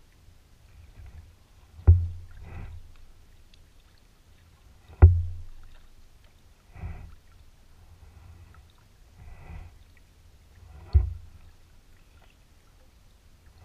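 A plastic kayak being paddled: the paddle knocks against the hull three times, each a sharp knock with a hollow boom that dies away over about a second, with softer splashes of the paddle blade in the water in between.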